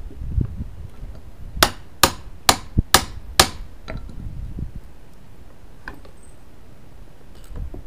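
Claw hammer striking a steel pry bar five times, about two strikes a second, each a sharp metallic hit with a short ring, driving the bar's claw into the wood under a sunk nail head so the nail can be pried out.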